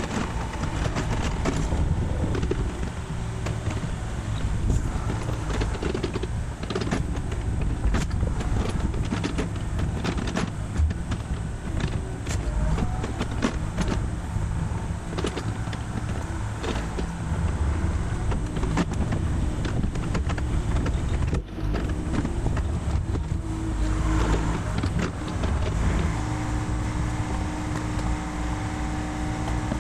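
Mini excavator's diesel engine running, with repeated knocks and clatter of wooden deck boards being torn loose and dropped by the bucket. Near the end the engine settles into a steady idle.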